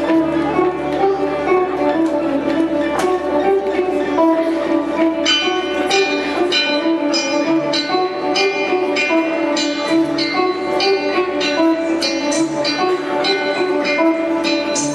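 Live band music in a slow instrumental opening: low notes held throughout, joined about five seconds in by a steady run of plucked, ringing string notes.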